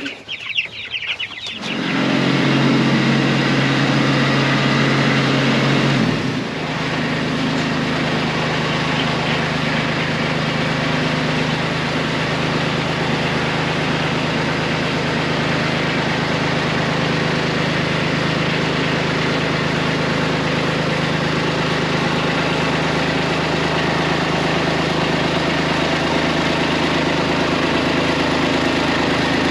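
An engine starts about two seconds in and runs steadily. About six seconds in it drops slightly in level and then keeps idling evenly.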